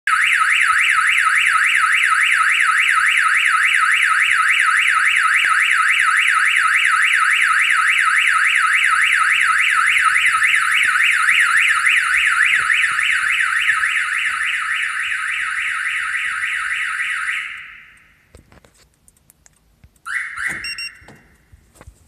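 Car alarm siren sounding in alarm mode with a loud, rapid warble, dying away about 17 seconds in. After a couple of faint clicks comes one short chirp of the siren near the end, the signal that the alarm is being armed.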